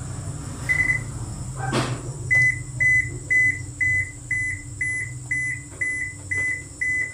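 Toshiba AW-E900L washing machine's control panel beeping: one short beep, a click, then a steady run of about ten short beeps at one pitch, two a second.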